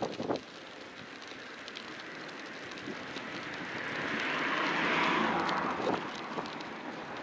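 A vehicle passing close by in street traffic: its noise swells to a peak about five seconds in, then fades. A couple of knocks come right at the start.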